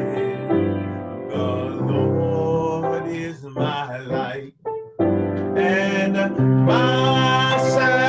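A worship song: a singer with piano accompaniment, the voice wavering in vibrato on held notes. The sound nearly drops out for a moment just past halfway.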